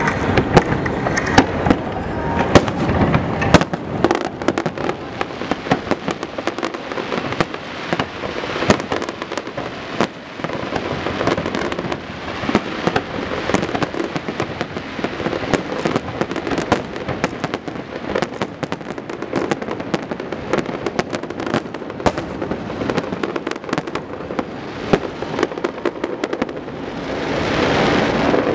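Aerial fireworks display: shells bursting in a dense, unbroken run of sharp bangs and crackle. Near the end, a steadier rushing noise swells up under the bangs.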